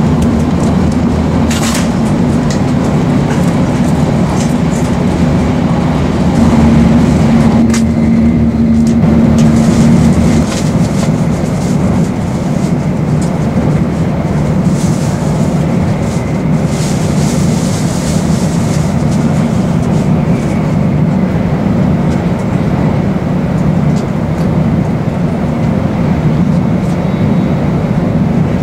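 Steady running noise of a Nozomi Shinkansen bullet train at speed, heard inside the passenger cabin: an even rumble and hiss. For the first ten seconds or so there is a louder hum with a steady low tone, which cuts off abruptly.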